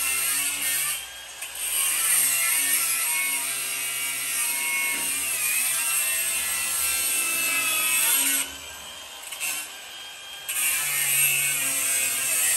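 Cordless angle grinder cutting into a sheet-metal electrical enclosure, a steady loud whine with a gritty hiss. It eases off briefly about a second in and again for about two seconds near the end.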